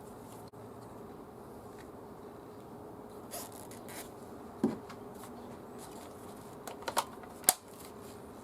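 Hikoki WH18DDL2 cordless impact driver's motor turning lightly with a steady buzzing hum, with a few sharp clicks from about three seconds in, the loudest near the end.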